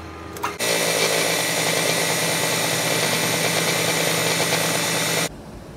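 A milling machine's end mill cutting into an aluminium motorcycle crankcase: a loud, steady machining noise. It starts about half a second in and stops abruptly near the end.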